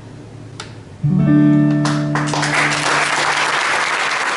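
A final chord strummed once on an acoustic guitar about a second in, left ringing as it slowly fades. About two seconds in, audience applause starts and swells over it.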